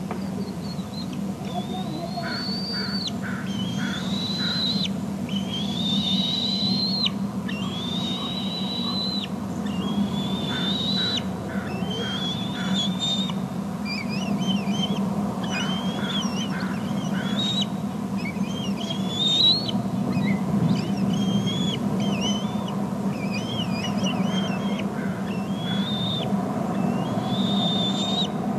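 A bald eaglet's food-begging calls: a long series of high whistled notes, each rising and then held for about a second, which turn shorter and choppier midway, with short lower clicks in between, over a steady low hum.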